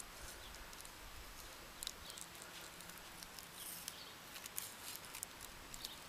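Faint, scattered light crackles and rustles of paper being held against the heated copper calcium titanate sample to test whether it ignites.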